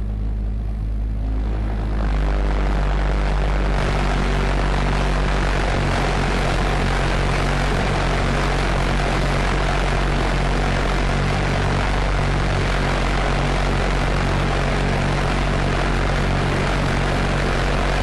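Argus pulse-jet engine of a V-1 flying bomb in flight, a steady low buzz with a rushing hiss over it. The buzz grows fuller about two seconds in.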